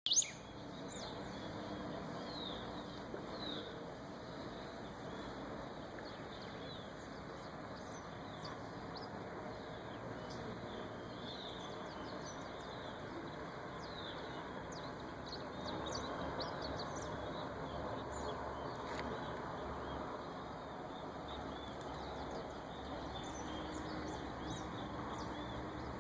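Many small birds chirping and twittering, short high calls overlapping one another, fewer of them in the last several seconds, over a steady background noise. A brief knock right at the start.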